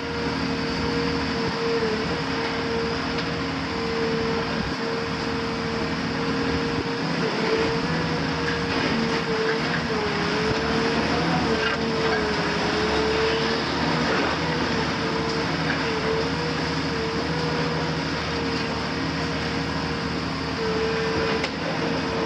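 A CAT 340F UHD demolition excavator's Cat C9.3 diesel engine and hydraulics running steadily under load. A strong whine wavers in pitch over the engine's running, with scattered crunching of masonry as the long-front attachment breaks into the building.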